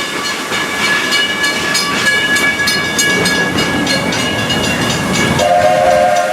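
Narrow-gauge steam train rolling along, its wheels clicking regularly over the rail joints under a thin, steady high tone. About five seconds in, the locomotive's steam whistle starts to blow and holds its note, as the train approaches a station.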